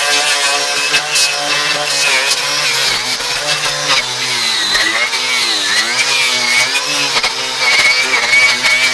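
Electric angle grinder with a wire cup brush running steadily, its wire bristles scrubbing rust and old coating off a metal roof seam with a scratchy rasp over the motor whine. The motor's pitch sags briefly twice near the middle.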